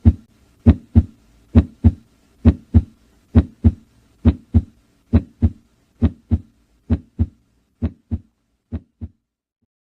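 Heart sounds as heard in cardiac auscultation: a regular lub-dub, S1 and S2 in close pairs at about 67 beats a minute. The beats grow slightly fainter and stop about nine seconds in.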